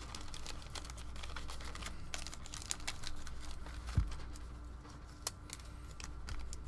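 Trading cards and a foil card-pack wrapper being handled on a table: scattered light clicks and taps, with one soft thump about four seconds in as a stack of cards is set down.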